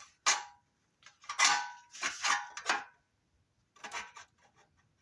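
Metallic clattering and scraping of a curved sheet-steel repair panel being handled and held up against a van's wheel arch, in several irregular bursts with brief metallic ringing. It dies down to a few light ticks near the end.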